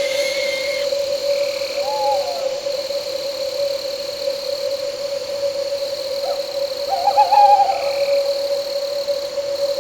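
An owl hooting twice: a short arching call about two seconds in, and a louder, wavering one about seven seconds in. Under it run a steady high chirring of crickets and night insects and a steady low droning tone.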